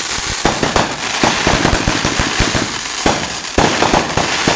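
A string of firecrackers going off in a rapid, irregular run of sharp pops and bangs, many a second, that sound like gunshots.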